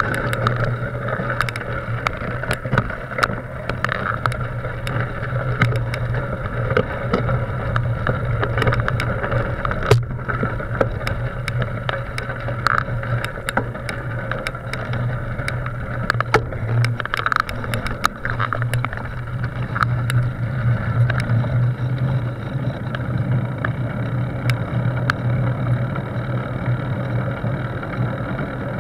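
Bicycle rolling slowly, heard through a camera mounted on its frame: a steady low hum with many small clicks and rattles as the bike moves over gravel and then pavement.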